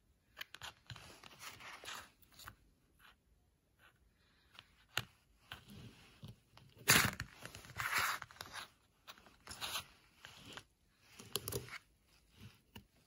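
Hard plastic cases of TDK clip-on ferrite cores being handled, slid and set down on a work mat: irregular scrapes and rustles with a few sharp clicks, loudest about seven seconds in.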